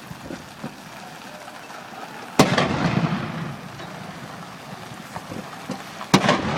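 Two shots from a ceremonial saluting cannon, a little under four seconds apart, each a sharp bang followed by a long rolling echo.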